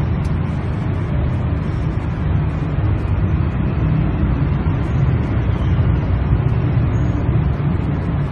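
Steady low rumbling noise, even throughout, with no distinct knocks or calls.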